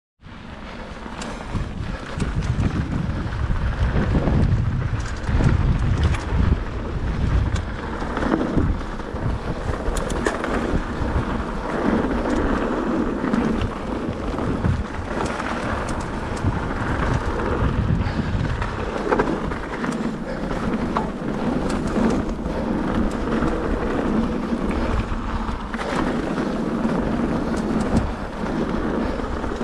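Mountain bike riding along gravel forest singletrack: wind buffeting the action camera's microphone over the tyres rolling and crunching on loose gravel, with frequent clicks and rattles from the bike over bumps.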